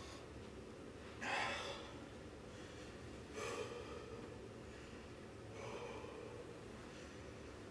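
A man breathing hard, out of breath from a workout: three heavy breaths about two seconds apart, the first loudest.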